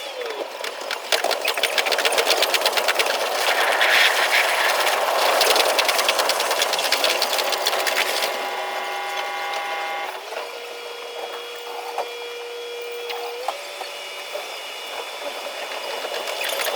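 E721 series electric train's running sound played at ten times speed: a rapid, even chatter of wheel and rail clicks over a steady noise, with a few steady tones through the middle, one stepping up in pitch near the end.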